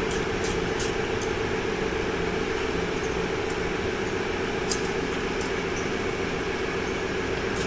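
Steady mechanical drone of shop machinery, with a few light metallic clicks from handling the valve spring compressor, retainers and keepers on an LS V8 cylinder head.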